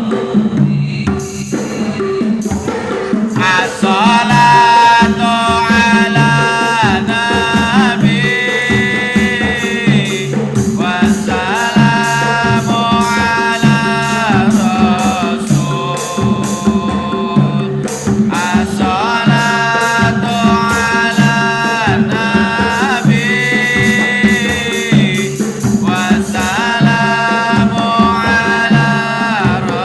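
Sholawat devotional song: a voice holding long notes that glide at their ends, over a steady, repeating hand-drum rhythm.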